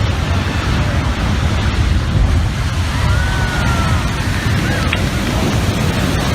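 Floodwater of a swollen river rushing, a loud steady wash, with wind buffeting the microphone.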